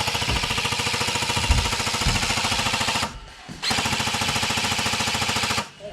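Airsoft gun firing on full auto in two long rapid bursts, the second starting after a short pause about three seconds in.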